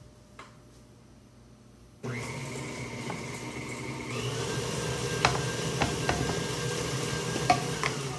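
Electric stand mixer switched on about two seconds in, its motor and beaters running steadily as they mix the batter, a little louder about two seconds later. A few sharp clicks sound over it near the end.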